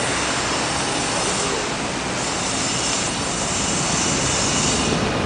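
Busy city street traffic: a steady, even wash of noise from cars, vans, a bus and motorcycles passing on a wide avenue.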